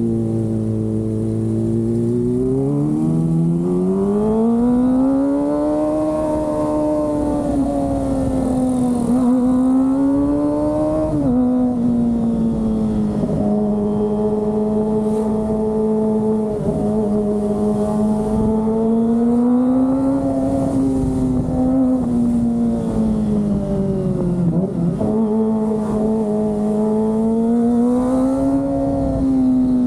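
Kawasaki ZX-25R's 250 cc inline-four engine under way, its pitch climbing from a low note in the first few seconds and then rising and falling through the gears, with a few sudden dips in pitch as gears are changed.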